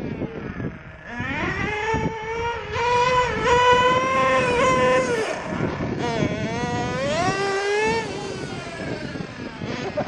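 Small glow-fuel nitro engine of a radio-controlled buggy revving up to a high, steady whine as the car drives. The revs drop sharply about five seconds in, climb again, and fall off near the end.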